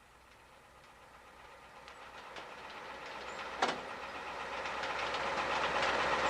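A machine's noise with scattered clicks, building steadily from faint to loud, with one sharp knock about three and a half seconds in.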